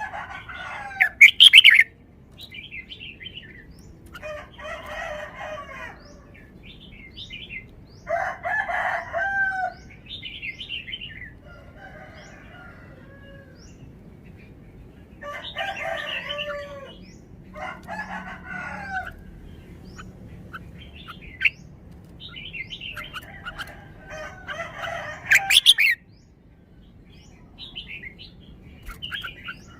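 Red-whiskered bulbul singing: a series of short, bubbly whistled phrases with pauses between them, the loudest near the start and near the end.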